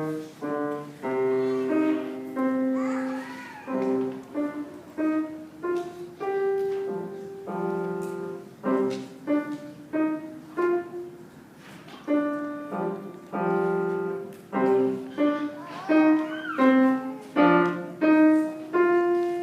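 Acoustic piano played at about two notes a second, single notes mixed with chords, each struck and left to ring and fade.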